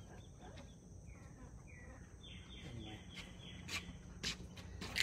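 Faint outdoor ambience with a bird singing a quick run of short, falling high chirps, followed near the end by three sharp clicks or taps.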